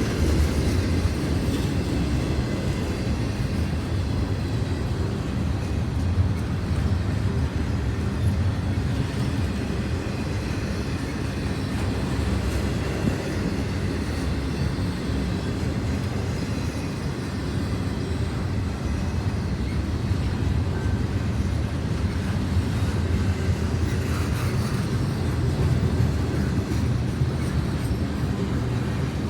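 Intermodal freight train rolling slowly past, a steady low rumble of wheels on the rails.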